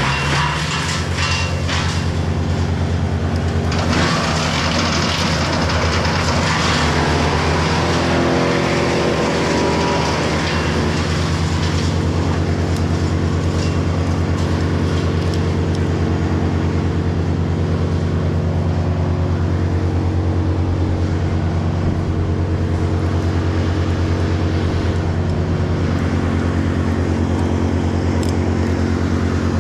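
Wood chipper's diesel engine running steadily at working speed, with a louder, noisier spell in the first ten seconds or so.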